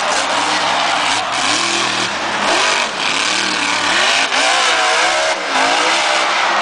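Max D (Maximum Destruction) monster truck's engine revving hard, its pitch rising and falling again and again under a dense, steady wash of noise.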